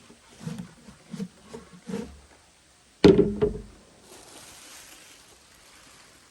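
Chickens clucking a few times, then a single loud thump about three seconds in that dies away quickly.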